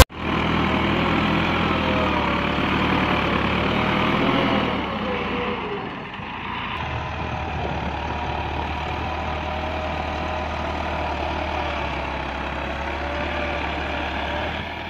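Massey Ferguson 385 tractor's four-cylinder diesel engine running under load while its front blade pushes soil, its pitch wavering slightly. It is louder for the first five seconds or so, then settles to a steadier, lower level.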